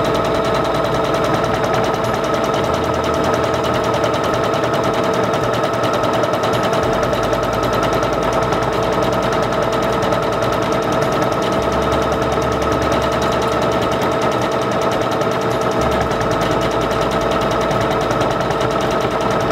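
Singer Confidence 7640 computerized sewing machine running at a steady speed as it stitches out a sequence of alphabet letters: a constant motor whine over the rapid chatter of the needle strokes. It stops suddenly at the end.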